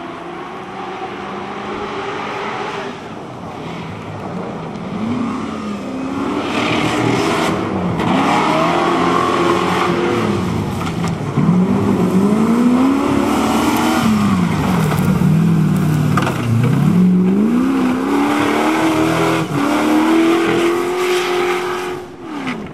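Modified off-road 4x4's engine revving hard over rough dirt and rocks. Its pitch climbs and drops several times as the driver gets on and off the throttle, and it grows louder as the vehicle comes closer.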